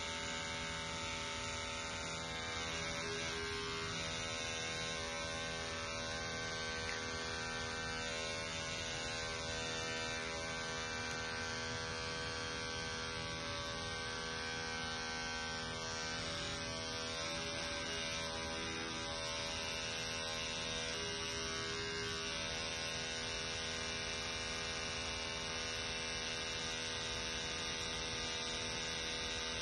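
Electric toothbrush motor buzzing steadily as it vibrates one end of a stretched elastic cord, setting up standing waves in it.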